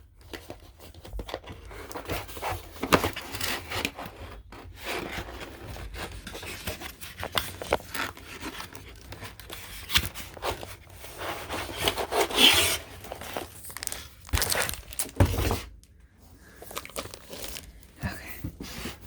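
Cardboard and plastic packaging being handled and unwrapped: irregular rubbing, scraping and crinkling, with a few sharp knocks.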